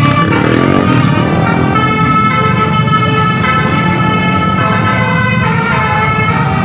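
A tour bus's telolet basuri musical air horn playing a melody of held tones that step from pitch to pitch, over the steady rumble of the bus engine.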